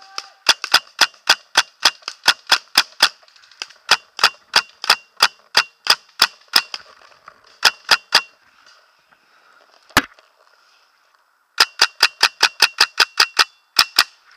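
Paintball marker firing in rapid strings of sharp pops, about four shots a second. A long string runs for the first six seconds, then a short burst near eight seconds, a single shot at ten, and another rapid string near the end.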